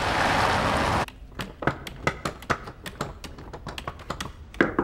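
An SUV driving past with a steady rush of road and engine noise that cuts off abruptly about a second in. Then light, irregular clicking, typing on a computer keyboard, a few keystrokes a second.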